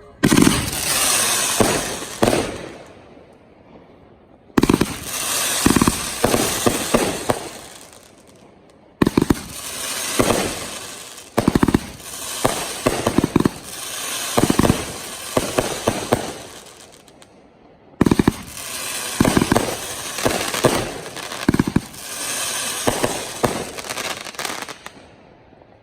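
Professional aerial fireworks going off in four volleys, each opening with a sharp bang and running on for several seconds as dense crackling and popping before dying away.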